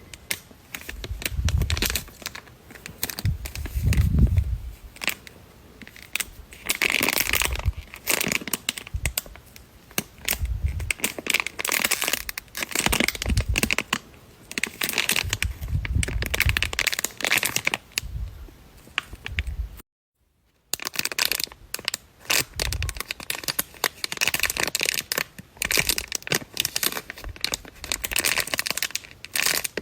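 Squishy toys and their plastic packaging being squeezed and handled: irregular crinkling and crackling with soft low thumps. The sound cuts out completely for about a second roughly two-thirds of the way through.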